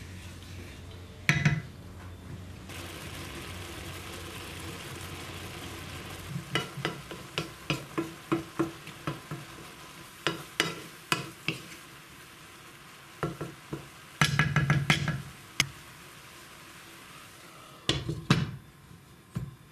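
A wooden spoon stirring rice in hot water in a nonstick frying pan, with the water hissing in the pan, followed by a run of sharp knocks of the spoon against the pan. Near the end a glass pan lid is set down on the pan with a few clatters.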